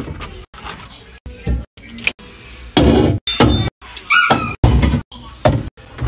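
A quick run of abrupt clunks and knocks as plastic drink bottles are set down on refrigerator shelves, each sound cut short, with a short squeak about four seconds in.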